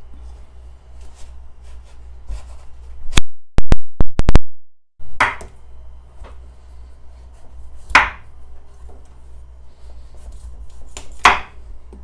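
Large kitchen knife cutting through a raw pumpkin on a bamboo cutting board: small scraping ticks and three louder sharp strikes of the blade. These play over a low steady hum. About three seconds in, a burst of very loud sharp clicks is followed by a brief total dropout of the sound.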